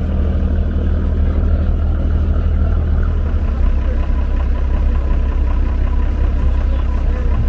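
Vehicle engine running steadily with a low drone that shifts slightly in pitch about three and a half seconds in.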